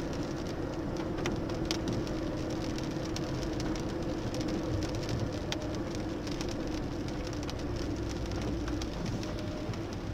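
Inside a Mercedes car driving on a wet road in the rain: a steady drone of engine and tyres, with scattered sharp ticks of raindrops striking the windscreen and body.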